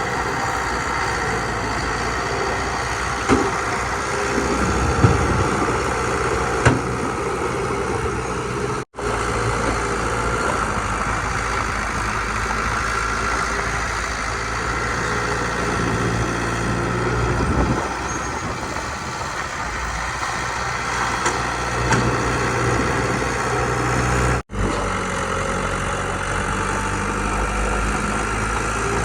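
Diesel engines of heavy earthmoving machinery, a bulldozer working with a dump truck, running steadily. A few sharp knocks come in the first several seconds, and the sound cuts out for an instant twice.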